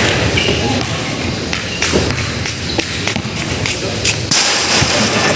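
Sounds of a pickup basketball game: scattered thuds of the ball and players' feet on the court, with a short hiss of noise about four seconds in.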